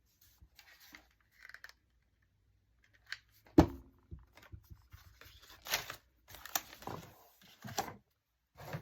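Paper and card being handled at a craft table: scattered short rustles and scrapes, with one sharp tap about three and a half seconds in.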